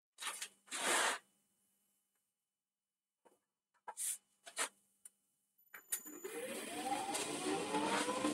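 A few short scrapes of a hollowing tool against the wood, then the wood lathe's motor starting up, its whine rising in pitch for about two seconds and levelling off near the end as the blank reaches speed.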